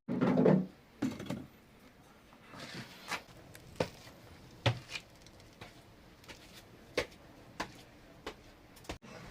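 A heavier thud at the start, then scattered light knocks and clicks, like things being handled and set down on a wooden surface.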